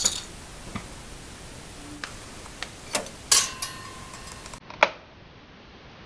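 A few scattered sharp clicks and taps, one of them followed by a short ringing tone.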